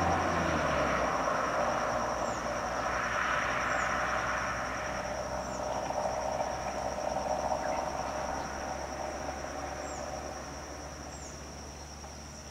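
A steady high-pitched insect trill, with the noise of vehicle engines on the road. A nearby engine's running dies away about a second in, and the remaining traffic noise slowly fades.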